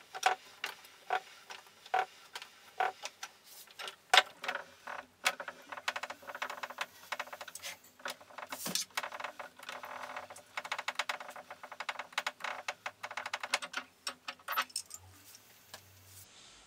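Wooden scissor lift table's threaded-rod drive being worked, clicking evenly about two to three times a second, then going into a faster, denser clicking rattle that stops about a second and a half before the end.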